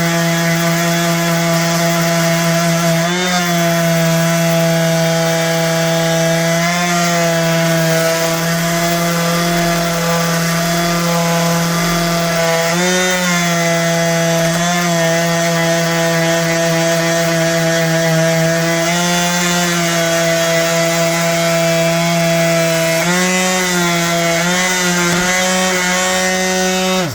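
Electric orbital sander running at high speed with a 120-grit disc on a metal lock plate, a steady motor hum whose pitch dips briefly several times. It stops suddenly at the end.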